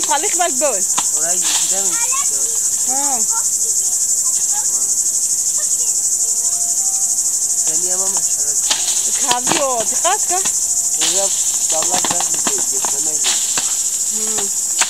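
Cicadas buzzing in a steady, high, continuous drone, with scattered sharp knocks and some faint rising-and-falling calls.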